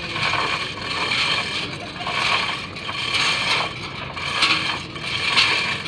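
Manual chain hoist being hauled hand over hand to lift a line-array speaker stack up a truss tower. The chain rattles and clicks through the block in swells about once a second.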